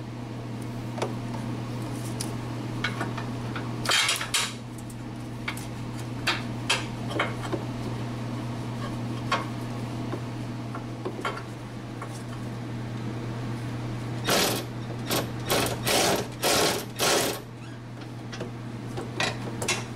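Metal clicks, knocks and scrapes as a suspension bolt is worked by hand into the rear upper control arm bushing and knuckle of a 2016-2021 Honda Civic. A quick run of louder scraping strokes comes about three-quarters of the way through. A steady low hum lies under it.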